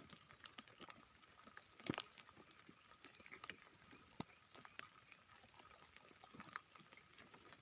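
Faint, scattered rustles and short clicks of grass and brush being pulled up and cleared from the ground by hand, with one sharper snap about two seconds in.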